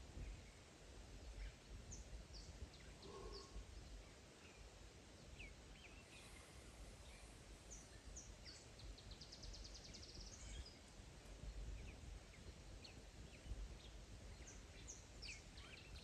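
Quiet bushveld ambience: scattered short, high bird chirps and a rapid trill a bit past halfway and again near the end, over a faint low rumble.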